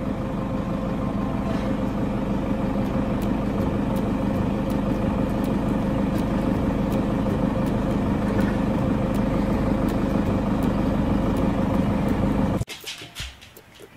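Small vehicle engine running steadily, a constant drone that cuts off suddenly near the end.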